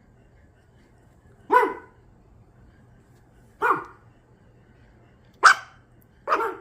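Pet dog giving four single sharp barks, a second or two apart.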